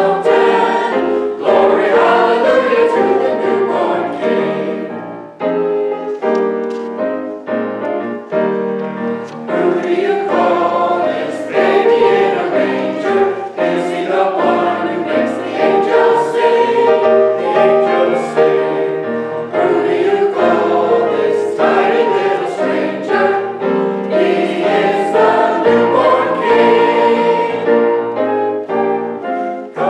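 Church choir singing a gospel song, with piano accompaniment.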